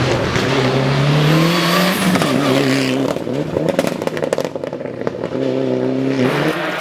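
Race car engine accelerating hard with rising pitch, then lifting off with a burst of exhaust pops and crackles on the overrun, then pulling again briefly before backing off.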